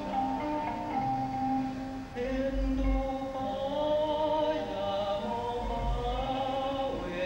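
Music with a slow sung melody of long held, gently wavering notes, and two deep thuds a few seconds apart.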